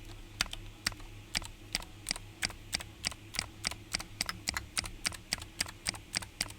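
Keys on a GK61 mechanical keyboard with clicky Gateron Blue switches pressed one at a time to test them, sharp single clicks that speed up from about two to about four or five a second.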